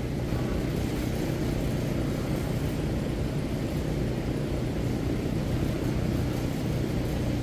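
Steady low mechanical drone of running machinery, even in level throughout, with no distinct knocks or clanks standing out.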